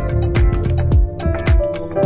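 Background music with a steady beat of about two beats a second and sustained melodic notes over it.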